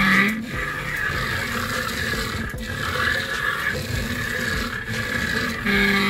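Two small DC gear motors of a homemade RC car running, a whine with a raspy gearbox sound under it, swelling louder at the start and again near the end.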